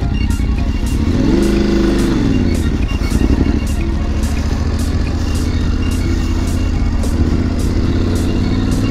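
Adventure motorcycle engine running under way, revving up and back down once about a second and a half in, then pulling steadily, with background music with a steady beat underneath.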